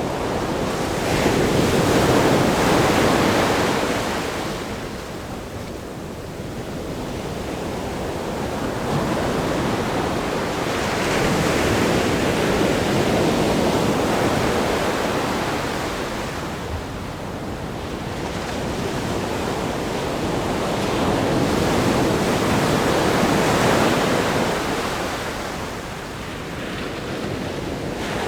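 Ocean waves breaking against a rock groin and washing up the sand, a continuous rushing surf that swells and eases in slow surges about every ten seconds.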